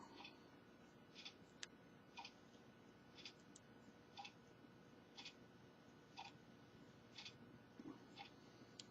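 Near silence with a faint, regular ticking about once a second, and one or two sharper small clicks.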